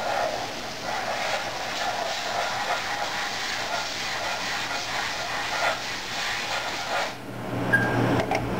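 Haas VF-2 CNC vertical mill machining, with a steady hissing, rattling cutting noise. About seven seconds in it stops abruptly and a lower hum takes over.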